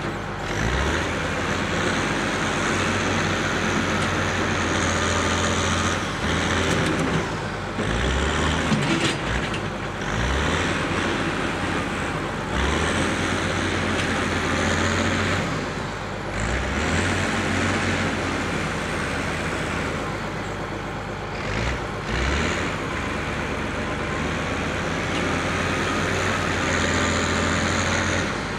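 Diesel engine of a front-end loader running steadily at the foot of a large leaning oak, with small dips and rises in level every few seconds.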